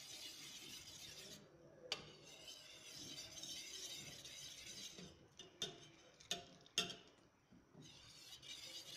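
Metal whisk beating curd in a stainless steel bowl: a faint scraping swish, with a few sharp clinks of the whisk against the bowl about two seconds in and again around six to seven seconds in.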